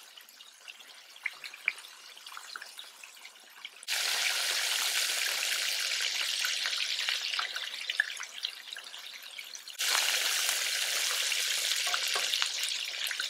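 Breaded wild hog steaks deep frying in hot peanut oil: faint crackling at first, then about four seconds in a loud, steady sizzling hiss of bubbling oil, which eases off and comes back loud again near ten seconds. The bubbling is the meat's moisture cooking out, which the cook uses to judge doneness.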